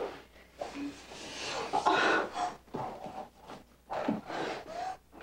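A person breathing hard and gasping in irregular bursts of about half a second to a second, with a few brief voiced sounds among the breaths.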